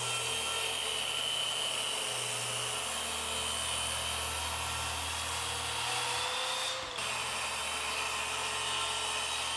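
Electric power saw running steadily through a cut in a wooden panel, with a steady whine over the cutting noise. The whine rises slightly just before a brief break about seven seconds in, then the saw runs on.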